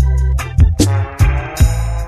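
Dub reggae music: a heavy bass line under regular drum hits and held chords, with a noisy swell building about a second in.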